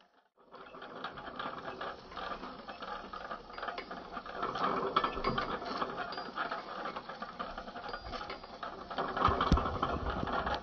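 Matchbox toy rolling-road test stand running, its rubber belt and mechanism turning under a 1:64 die-cast model truck with a steady run of small mechanical clicks. It starts after a brief silence about half a second in, and there is a single knock near the end.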